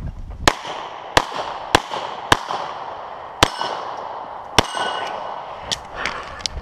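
Stainless semi-automatic pistol firing six shots, unevenly spaced about half a second to a second apart with a longer gap after the fourth; two of the later shots are followed by a brief metallic ring. A few fainter sharp clicks follow near the end.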